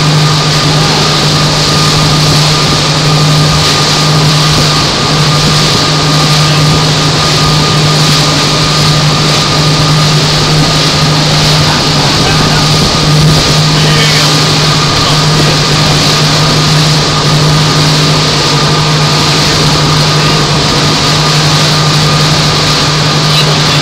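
Motorboat engine running at a steady cruising speed, a constant low hum with a thin steady whine above it, over a continuous rush of wind and water.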